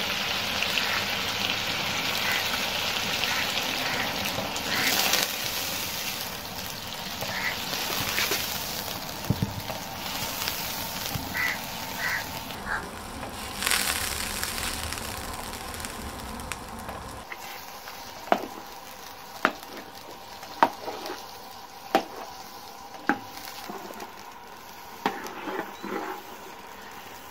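Butter melting down to ghee in an aluminium pot, with a steady sizzle as a steel ladle stirs it. In the second half the sizzle eases and the ladle clinks against the pot about once a second.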